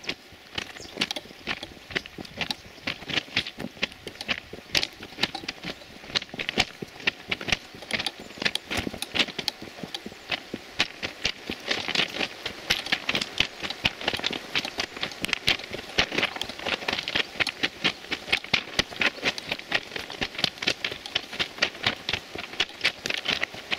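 Footsteps crunching on railway ballast and sleepers in a quick, even walking rhythm, several gravel crunches a second.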